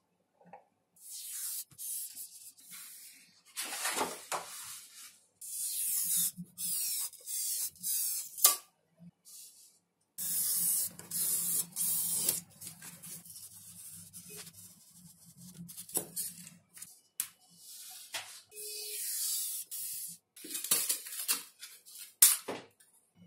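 Snap-off craft knife blade drawn through 5 mm XPS foam sheet along a steel ruler: a series of scratchy, hissing cutting strokes of a second or two each, with the paper template rustling and a few sharp clicks.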